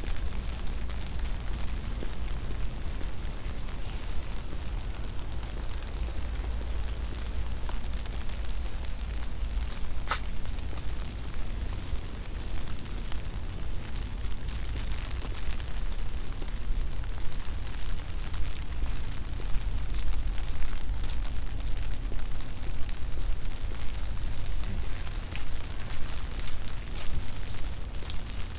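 Rain on a city street: a steady hiss with a heavy low rumble underneath and scattered sharp ticks, one clear tick about ten seconds in.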